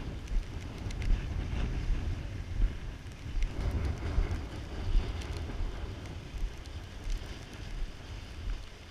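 Gusty storm wind buffeting the camera microphone: an uneven low rumble that swells and drops with the gusts.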